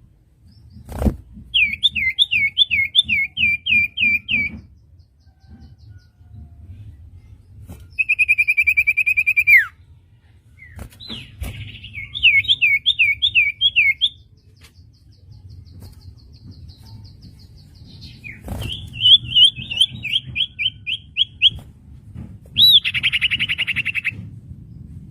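Common iora singing: repeated phrases of quick rising whistled notes, one a held trill ending in a downward slur, with short pauses between phrases.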